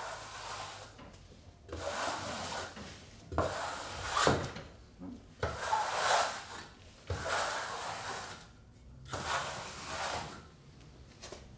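Flat trowel scraping across Kerdi waterproofing membrane as it is pressed into the thinset beneath, in a series of strokes about a second long each, roughly eight in all, bedding the membrane flat and pushing out air bubbles.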